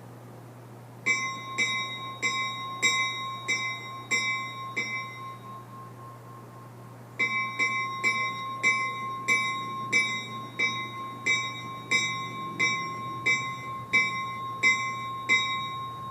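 Steel EMD locomotive bell rung by hand, not on air, its clapper striking about one and a half times a second, each strike ringing on with a clear tone. A run of seven strikes, a pause of about two seconds, then about fourteen more.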